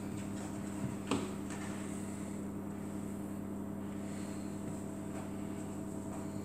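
Steady low mechanical hum, as from a running appliance or fan motor, with a light knock about a second in.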